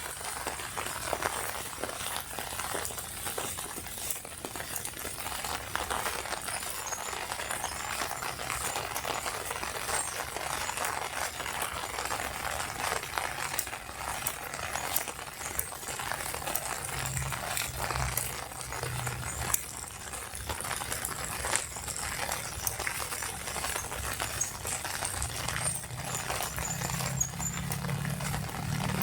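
Steady rain, with dense close drops hitting an umbrella overhead as many small rapid taps over the hiss of the rainfall.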